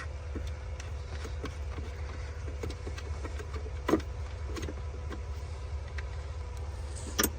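A plastic trunk-trim bracket being pushed into place, with light clicks and a sharp snap about four seconds in, then a louder snap near the end, over a steady low hum.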